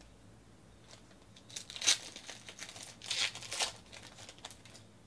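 Foil trading-card pack wrappers crinkling and tearing as they are opened by hand, in two main bursts, the louder about two seconds in.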